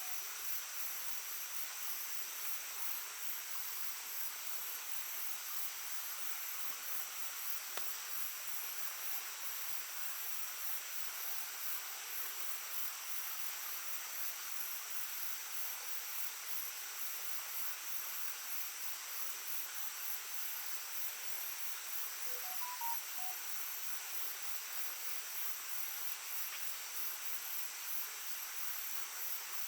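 Steady chorus of crickets or other insects trilling with a fast, even pulse, over the soft, even rush of a shallow babbling stream.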